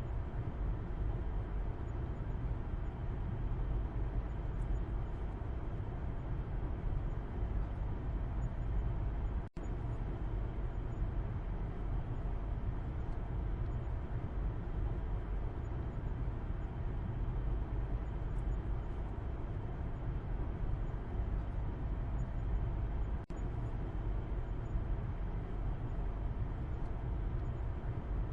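Steady road noise inside a moving car's cabin heard from the back seat: a low rumble with a hiss of tyres on the road above it. The sound drops out for an instant twice, about ten seconds in and again about twenty-three seconds in.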